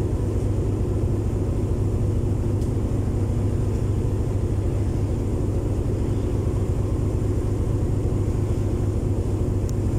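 Ship's engine running with a steady, low droning hum.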